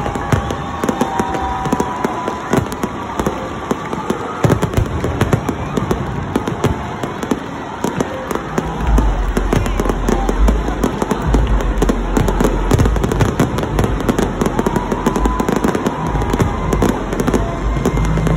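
Aerial fireworks bursting overhead: dense, continuous crackling and popping of many shells, with heavier low booms joining from about halfway through.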